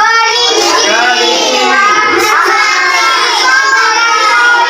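A child singing a song, continuously and at a high pitch.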